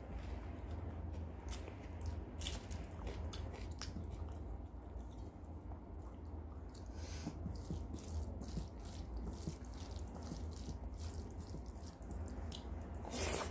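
Fingers mixing and squeezing wet rice and mashed dal on a steel plate: soft squelching and dripping with small scattered clicks, over a steady low hum, with a louder click near the end.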